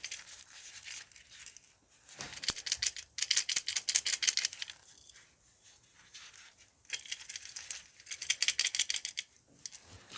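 Old refrigerator compressor start relay shaken by hand, its loose contacts rattling inside the casing in several short bursts: the sign of damaged relay contacts.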